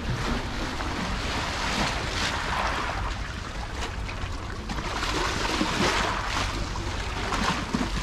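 Lake water lapping and washing in irregular swells, over a steady low rumble of wind on the microphone.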